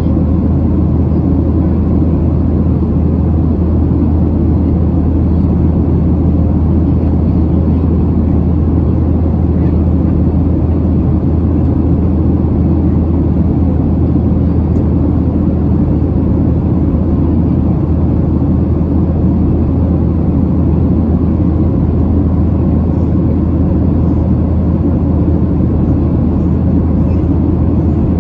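Steady cabin noise of a Boeing 737-700 climbing after takeoff: the constant drone of its CFM56-7B engines and the airflow past the fuselage, mostly low in pitch with a deep steady hum underneath.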